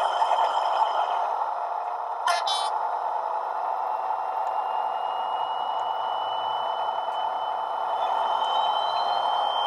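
Hornby HM7000 decoder playing its HST sound profile with the Paxman Valenta engine option through the model locomotive's small speaker. A steady diesel engine sound has a short sharp rattle about two seconds in. From about four seconds on, a high whistle slowly rises in pitch as the engine winds up.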